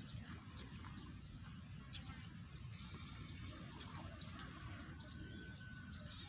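Faint outdoor background noise with a few soft clicks and, about five seconds in, a faint thin steady tone lasting about a second.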